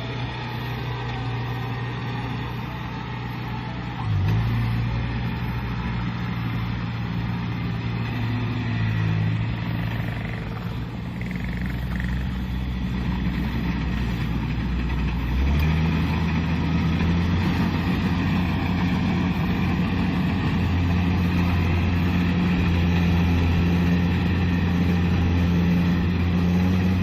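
Kubota DC-70 combine harvester's diesel engine running steadily. Its note shifts and gets louder about four seconds in, and again about halfway through.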